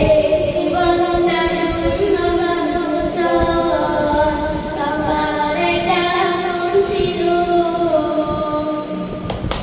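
A young girl singing a Bengali Islamic song without instruments, in long held notes that shift from one pitch to the next.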